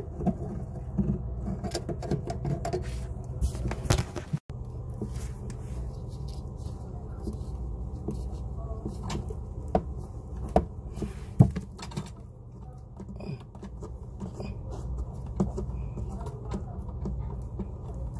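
Scattered clicks and knocks of hand tools working the water supply line fittings under a bathroom sink while the lines are disconnected, over a steady low hum.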